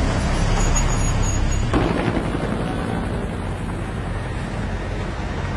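Steady low rumble of idling vehicle engines in stopped traffic, heard from inside a car cabin, with a brief thump a little under two seconds in.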